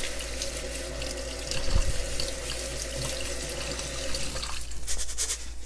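Kitchen faucet running a steady stream onto rice in a fine-mesh strainer, splashing down into a stainless steel sink as the rice is rinsed of its starch. Near the end the steady stream gives way to uneven splashing.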